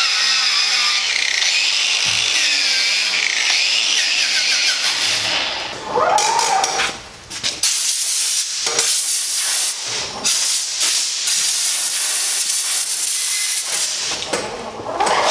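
Cordless grinder grinding steel, a loud hiss over a whining motor. Around seven seconds in it dips and spins back up with a rising whine, then breaks off briefly a few more times.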